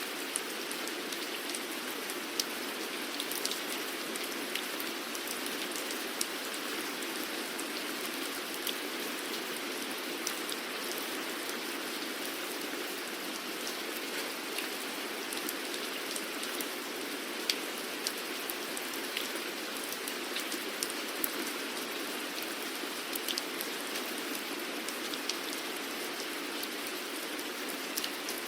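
Steady rain falling, an even hiss with scattered sharper drops pattering on a surface.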